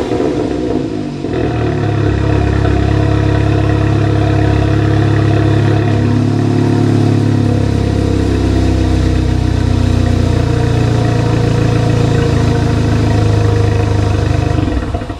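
Exhaust of a Volkswagen MK7 GTI's turbocharged 2.0-litre four-cylinder, muffler deleted, idling loud and steady after a cold start, a rev dying away in the first second. The engine sound drops away abruptly at the very end.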